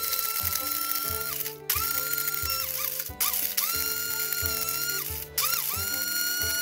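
Hamilton Beach single-serve blender (model 51101) run in repeated pulses, chopping HDPE plastic bottle caps into small pieces. Each pulse is a high motor whine that rises as it spins up and holds for about a second, with a few quick short taps and brief stops between.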